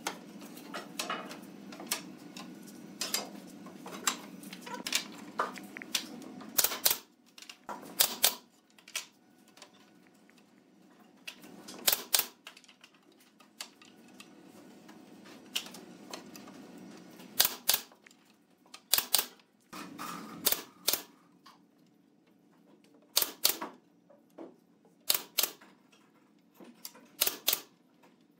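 Pneumatic brad nailer firing nails into pine bench slats: sharp, irregular shots, some in quick pairs, over a low steady hum.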